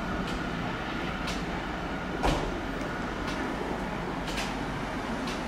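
A CP 1400-class locomotive's English Electric eight-cylinder diesel engine running steadily with a low sound as the locomotive moves away. Sharp clicks come about once a second, the loudest just past two seconds in.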